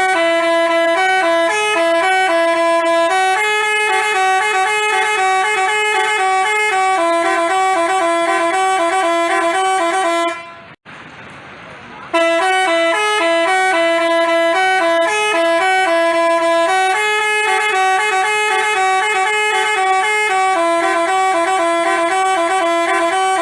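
Telolet basuri horn playing a stepped multi-tone melody. The tune breaks off about ten seconds in and starts over from the beginning a second and a half later.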